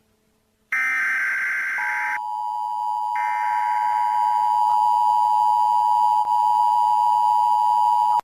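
Emergency-alert broadcast tones: after a brief gap, a burst of digital data-header noise, then a steady two-tone attention signal that holds and cuts off suddenly at the end.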